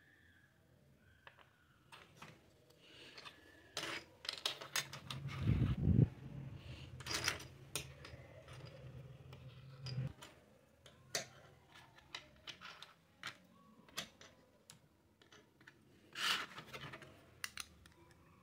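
Small plastic toy kitchen pieces clicking and clattering as they are handled and set down on a tabletop, with a louder knock about six seconds in.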